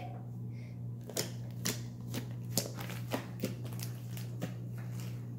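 Thick glittery slime being stretched and folded by hand against a countertop, giving a string of irregular sharp clicks.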